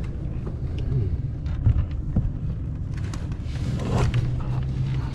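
A boat's motor running steadily, with a few light knocks on the boat.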